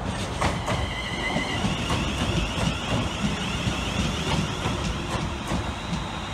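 Class 350 electric multiple unit passing close along the platform: a steady low rumble, its wheels clicking several times over the track, and a high wavering whine that rises slightly in pitch.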